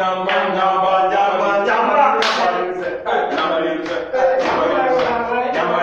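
Several male voices chanting and singing a repeated refrain together a cappella, with no instruments.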